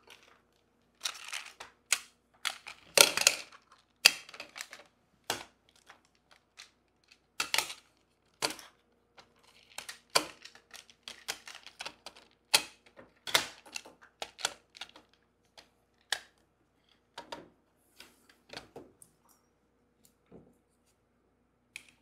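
Plastic magnetic building tiles clicking and clacking, irregular and often in quick clusters, as they snap together and are set down on a wooden table.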